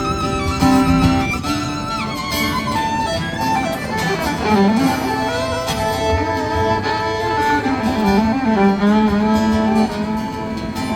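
Fiddle playing an instrumental solo with sliding, wavering notes over guitar accompaniment in a country song.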